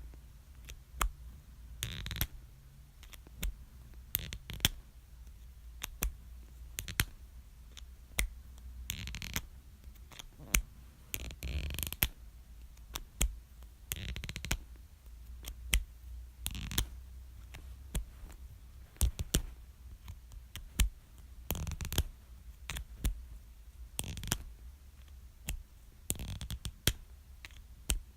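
Plastic marker cap being pulled off over and over: repeated sharp clicks at uneven intervals, with a short scrape of plastic sliding on plastic every few seconds.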